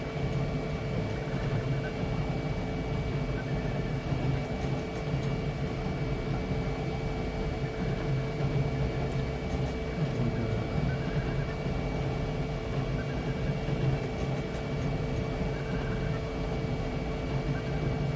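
Flashforge Adventurer 5M Pro 3D printer running mid-print: a steady machine hum with a few fixed tones, and faint short tones coming and going over it.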